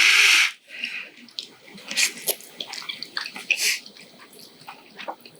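Noodles slurped in one long, loud suck that cuts off about half a second in, then quieter chewing and wet mouth clicks, with a couple of short slurps.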